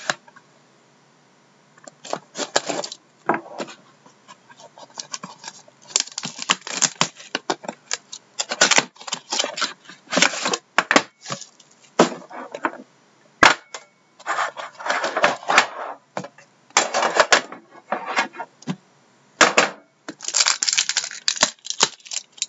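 Hands opening a cardboard box of trading cards and handling the metal tin inside it on a wooden desk: an uneven string of sharp clicks and knocks, with bursts of scraping, rustling noise.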